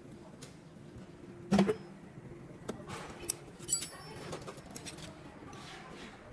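A sharp knock about one and a half seconds in, followed by several lighter clicks and clinks, some with a brief high metallic ring.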